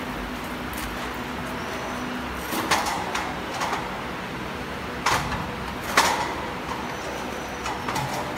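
Sharp metallic clanks of stainless-steel conveyor rollers and frame parts being handled and fitted: a few separate knocks with a short ring, the loudest about six seconds in, over steady background noise.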